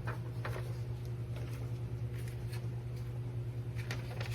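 A steady low hum runs throughout. Over it come a few soft taps and rustles from small seasoning containers being handled.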